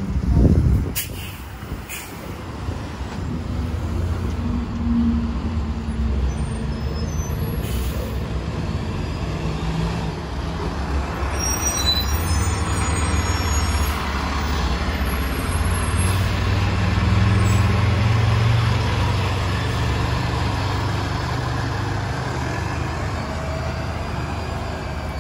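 A 2017 Gillig Low Floor 40-foot transit bus pulling away from a stop and driving off. A sudden loud burst comes about half a second in, then the engine runs steadily louder as the bus accelerates past, loudest about two-thirds of the way through, and eases a little near the end.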